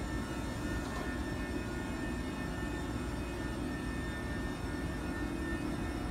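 Renfe class 253 electric locomotive hauling a car-carrier freight train slowly past: a steady drone of its traction equipment and cooling fans with the wagons rolling by, carrying a few thin steady whines above it.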